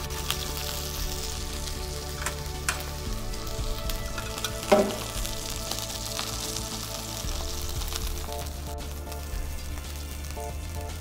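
Scorpionfish (cabracho) fillet sizzling in a hot frying pan as it is seared skin-side down, with a few light utensil clicks against the pan and one louder knock a little under halfway. Soft background music with sustained chords runs underneath.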